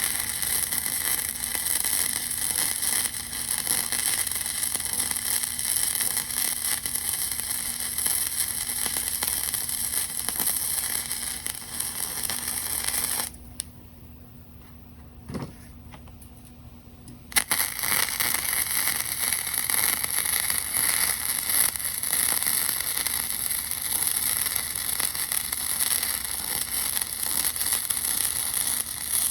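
Electric arc welding, the arc crackling and hissing steadily; it stops for about four seconds a little under halfway through, then strikes again and runs on.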